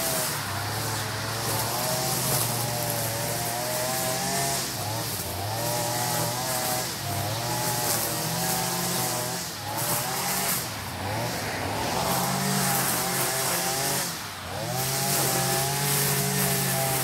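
Small gas engines of lawn equipment, a mower and a string trimmer, running together, their pitch rising and falling with the throttle, with brief dips about ten seconds in and near the end.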